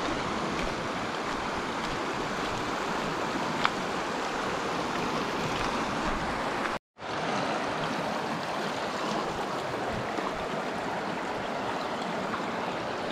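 A river flowing, a steady wash of running water. It breaks off for a moment about seven seconds in, and there is one faint click near four seconds.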